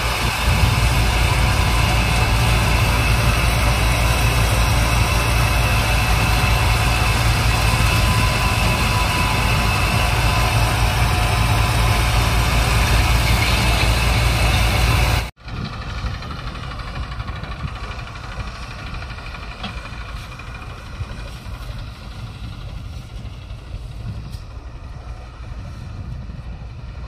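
Tractor-powered threshing machine running steadily while threshing mung bean plants: a loud, even machine noise with a deep hum and a dense hiss. About halfway through it gives way suddenly to a much quieter low engine rumble with wind on the microphone.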